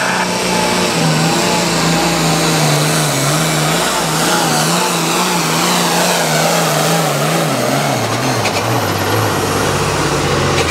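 Diesel engine of an International 1486 hot farm class pulling tractor at full throttle while it drags the sled, the engine note wavering up and down. Over the last few seconds the pitch drops as the engine is pulled down by the sled's load.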